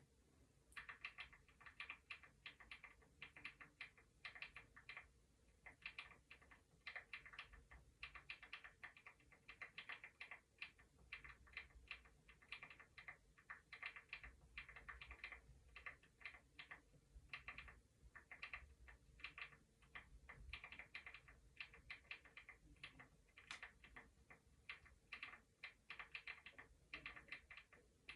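Computer keyboard typing, soft and close: rapid runs of key clicks in bursts of a second or two, separated by short pauses.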